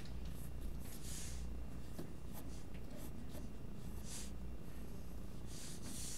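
Mechanical pencil lead scratching across paper in short sketching strokes, with longer strokes about a second in, at about four seconds and near the end. A low steady hum runs beneath.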